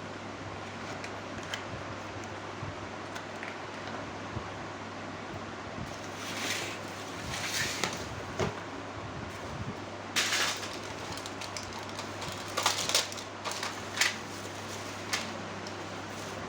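Steady fan-like hiss with a low hum, broken in the second half by several short rustles.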